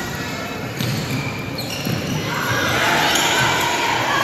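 Indoor futsal play on a hardwood gym floor: the ball being kicked and dribbled, and shoes scuffing and squeaking, echoing in a large hall. The sound grows louder and busier about halfway through.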